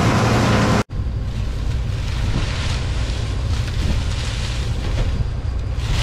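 A John Deere combine running through the first second, cut off abruptly, then wind buffeting the microphone over the low, steady rumble of the combine's engine.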